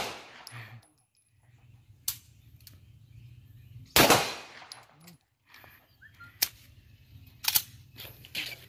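Handgun shots on an open firing range, fired one at a time with pauses of a second or more: the loudest crack about four seconds in, each trailing a short echo, with quieter shots about two seconds in and several more in the last three seconds.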